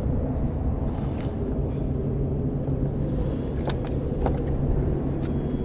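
Boat motor running with a steady low hum, with a few light clicks in the second half.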